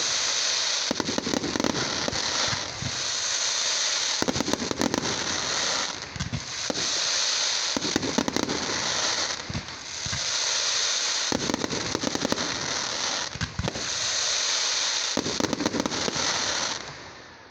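Aerial fireworks display: dense crackling from crackle shells in repeated waves, with sharp bangs mixed in, stopping shortly before the end.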